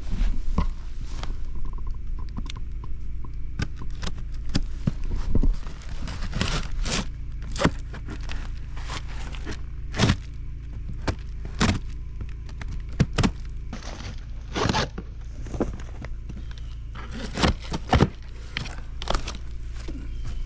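Cardboard shipping boxes being cut open and unpacked: irregular scrapes, tearing, crinkling and knocks of packaging being handled, over a steady low rumble.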